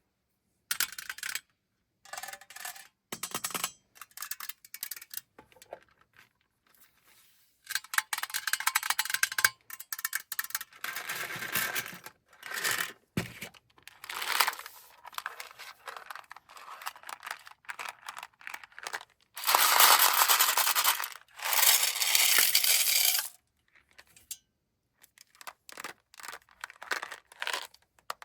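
Hard-shelled M&M's candies poured out of their packaging and clattering onto a hard surface. Short rattles and clicks come between two longer, continuous pours, one about eight seconds in and one around twenty seconds in.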